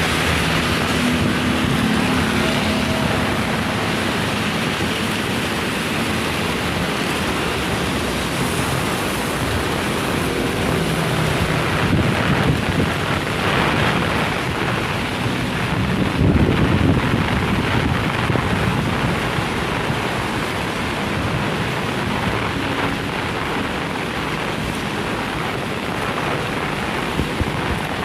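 Heavy rain falling steadily with strong, gusting wind that surges hardest about twelve and sixteen seconds in. A faint low hum sits under the rain in the first few seconds.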